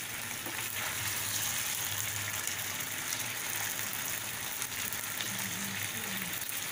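Clams in their shells sizzling steadily in hot oil in a kadhai, with a few light spatula touches as they are gently stirred.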